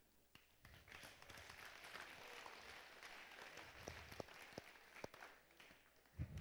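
Faint applause from an audience, many hands clapping together, building about half a second in and dying away near the end.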